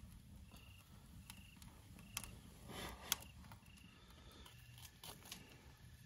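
Faint evening outdoor quiet: an insect chirping, a short high note repeated about once every three-quarters of a second, with two sharp snaps from the wood fire.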